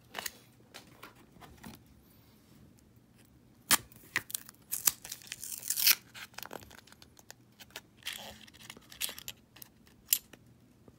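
Paper wrapper of a roll of half dollars being torn open and crinkled, with scattered sharp clicks from the coins being handled. The longest stretch of tearing comes about halfway through.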